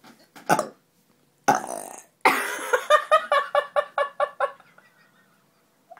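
A female voice belching, carbonated from drinking Coke: two short burps, then about two seconds in a long belch that breaks into a quick rattle of about five pulses a second and fades out.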